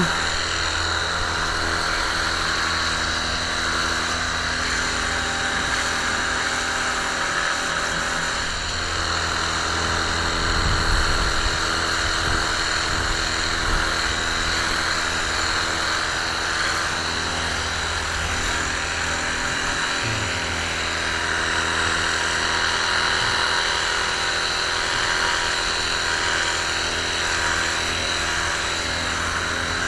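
Sunglife cordless electric pressure washer running steadily: a small pump motor's constant whine over the hiss of its water jet.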